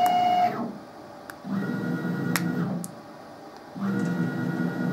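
Stepper motors on the Emco F1 CNC mill's retrofitted axis drives jogging the table in short moves. The first move ends just after the start, the second runs for about a second, and the third starts near the end. Each move rises to a steady whine and falls away again as the motor speeds up and slows down.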